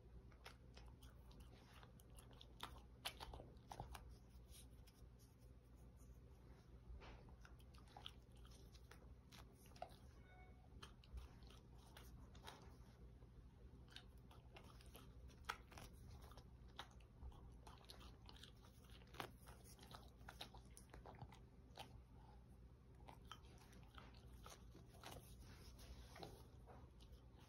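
Small dog chewing and crunching bites of roti flatbread: faint, irregular crunches and mouth clicks.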